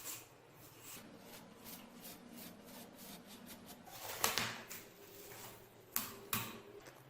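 Hand work on the axe: a run of light, rhythmic strokes that quicken to about five a second, then a sharp knock about four seconds in and two more close together near the end.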